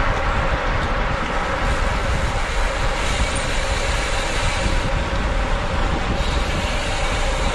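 Steady wind rushing over the microphone of a road bike riding at race speed, mixed with the hum of tyres on the road.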